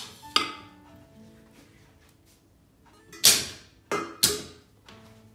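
Soft background music of held notes. Over it, kitchenware clatters as pans and dishes are moved about on the stove: a sharp clink at the start and another just after, then three loud clatters between about three and four and a half seconds in.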